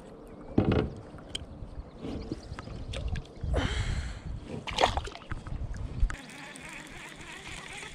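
A few knocks and rustles of handling in a plastic kayak as a largemouth bass is unhooked, then a splash about five seconds in as the fish is let go back into the water.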